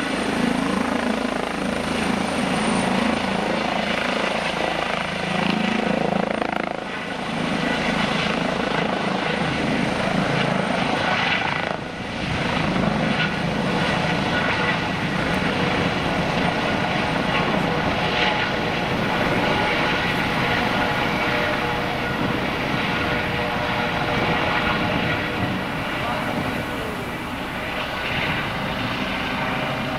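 Trauma helicopter flying, its rotor chop and turbine running steadily and loudly.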